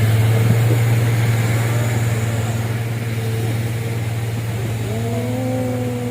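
Diesel truck engine running steadily with a deep, constant hum. About five seconds in, a higher tone rises and then slowly falls away.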